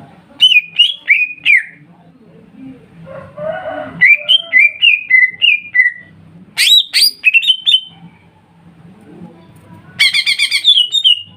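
Green leafbirds (cucak ijo) singing in three phrases of quick, down-slurred whistled notes, with a harsh, buzzy call near the end.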